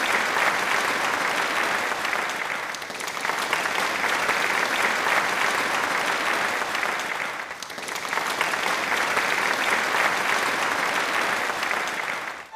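Audience applauding, a dense, steady clapping that dips briefly twice and swells back.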